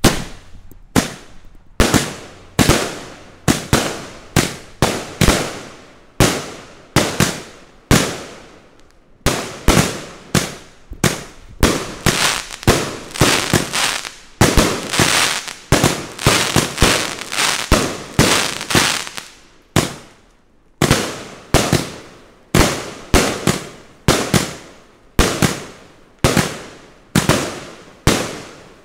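A 100-shot consumer firework cake firing shot after shot: a steady string of sharp bangs, more than one a second, each trailing off briefly. Midway the shots come thicker and the bursts run together.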